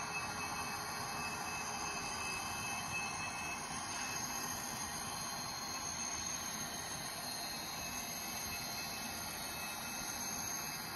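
N scale model freight cars rolling along the track: a steady rush of small metal wheels on rail, with a few faint, steady high-pitched tones over it.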